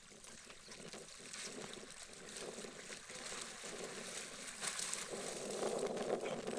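Water splashing and sloshing as a dog swims across a pond and then wades through the shallows. The splashing grows louder in the last couple of seconds as it bounds through the water.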